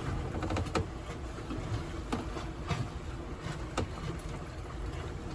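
Sailboat heeled over under sail, with a steady low rush of water and wind along the hull and a few light knocks and clicks scattered through it.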